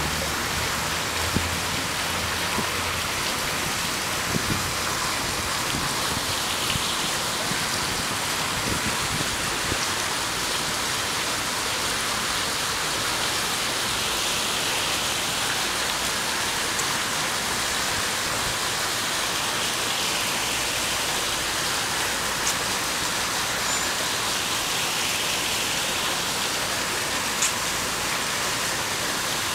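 Steady rush of water flowing in a thin sheet over a black granite memorial fountain table.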